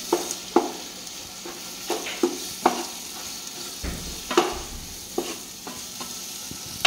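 A spoon stirring onion-and-tomato masala frying in a non-stick pot, knocking and scraping against the pot about a dozen times at an uneven pace over a steady sizzle.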